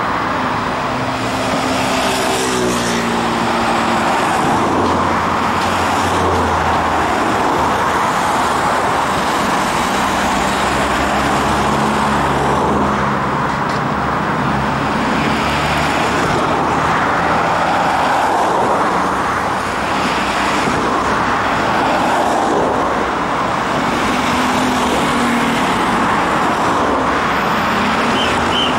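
Steady city road traffic running past, with an Ansaldo Breda Sirio tram rolling slowly toward the stop along its tracks.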